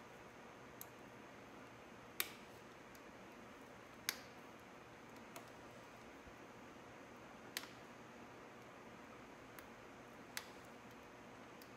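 Sharp clicks of a metal dental-style pick catching and prying at small plastic caps plugged in the motorcycle frame's mounting holes, at uneven intervals: about seven clicks, four of them louder, over a faint steady hiss.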